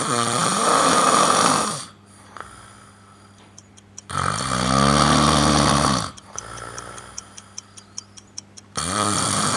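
A man snoring heavily in his sleep: three loud snores about four seconds apart, each lasting about two seconds, the middle one with a buzzing pitch. Faint ticking is heard between them. His overnight sleep study found severe obstructive sleep apnea, with about 36 breathing interruptions an hour.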